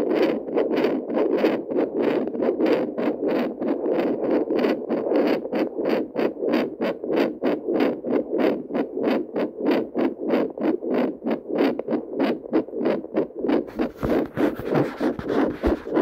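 Handheld pocket Doppler picking up a heartbeat and playing it through its speaker as a quick, regular train of whooshing pulses. Near the end the probe shifts on the skin, adding a rough scraping rustle and a few low thumps.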